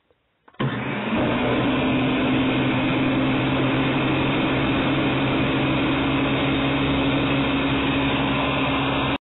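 Ninja countertop blender switched on about half a second in, its motor running steadily as it blends a liquid flan mixture of milk and eggs, then cutting off suddenly near the end.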